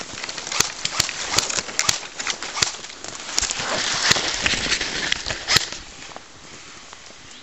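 Footsteps of someone moving quickly through forest undergrowth: leaf litter and branches rustling, with sharp twig snaps at irregular intervals. It dies down to a faint hiss after about six seconds.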